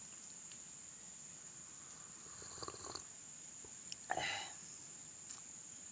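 Quiet outdoor ambience with a steady high-pitched insect buzz, and two brief faint sounds about two and a half and four seconds in.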